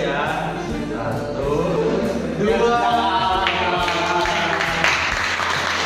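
A group of young men's voices raised together in cheering and laughter, then hands clapping from about three and a half seconds in, with the cheering going on over it.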